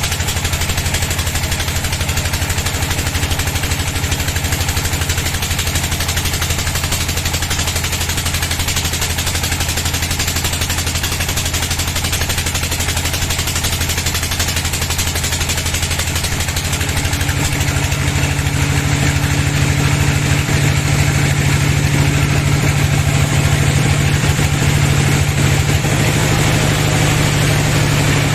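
Sawmill bandsaw machinery running steadily with a low engine-like hum. The pitch of the hum steps up about two-thirds of the way through and again near the end.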